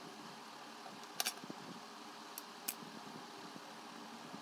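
Scissors working at the insulation of a thin red-and-black wire: a few short sharp clicks, a double one about a second in and two more soon after, over a faint steady hum.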